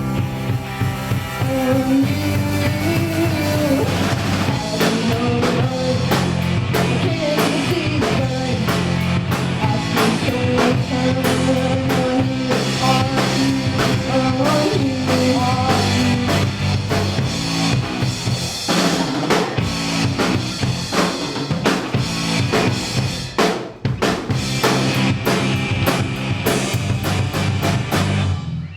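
A rock band plays an instrumental passage live, with a drum kit (snare and bass drum) keeping a busy beat under bass and guitar. The music drops out briefly near the end, comes back, then stops abruptly.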